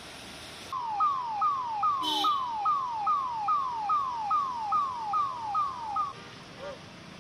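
Electronic siren sounding rapid falling sweeps, about two and a half per second, starting about a second in and stopping shortly before the end, over a steady hiss.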